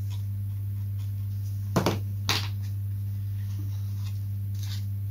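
Steady low electrical hum, with a few light clicks and knocks from handling a glue tube and foam model parts on a workbench: two sharp ones about two seconds in, half a second apart, and fainter ticks near the end.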